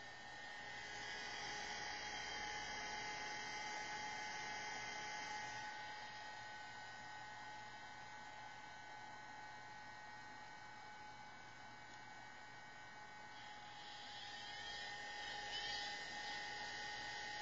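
Steady electrical hum with several high whine tones from a Macintosh LC II just after power-on. The hiss swells slightly about a second in and again near the end.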